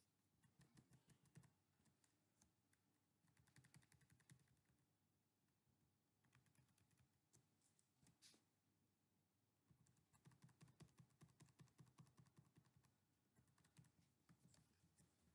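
Faint computer keyboard typing in short runs of rapid key clicks, the longest and densest run about ten to thirteen seconds in.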